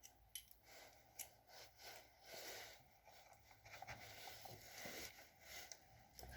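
Faint scattered clicks and light rustling of hand handling at a small lathe, with no motor running.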